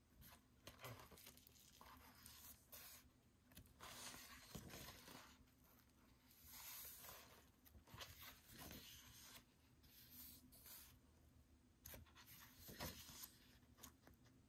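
Faint rustling and swishing of a glossy album photobook's pages being turned by hand, a page every second or two, with soft paper scrapes in between.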